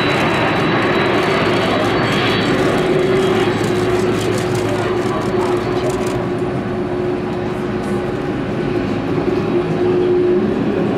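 Jet airliner engines running, a loud steady rush of noise with a humming tone; a faint high whine fades out about halfway through.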